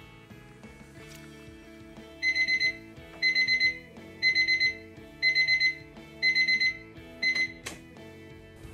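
Alarm clock beeping in quick sets of four, about once a second, starting a couple of seconds in; the last set is cut short as the alarm is switched off, followed by a click. Background music plays underneath.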